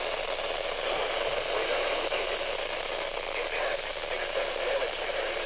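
Weather-radio receiver on a weak NOAA Weather Radio signal: a steady hiss of static, with a faint voice barely made out underneath.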